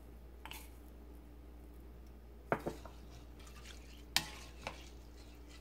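A spatula stirring soaked glutinous rice and liquid in a rice cooker's inner pot, quiet, with a few light knocks of the spatula against the pot, the clearest about two and a half and four seconds in.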